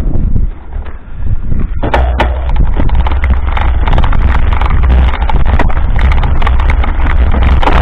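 Mountain bike rolling over a rough dirt road, heard through a camera carried on the bike: wind rumble on the microphone and a steady clatter of small knocks and rattles from the bumps. It is quieter for a moment near the start and louder from about two seconds in.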